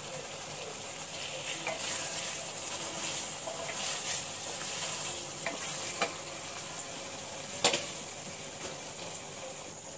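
Thick masala gravy sizzling in a steel kadai over a high gas flame while a wooden spatula stirs fried lauki kofta through it, with a few scrapes of the spatula on the pan. There is one sharp knock about three-quarters of the way in.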